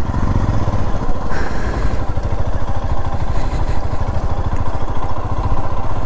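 Motorcycle engine running at low speed on the move, a fast, even run of firing pulses.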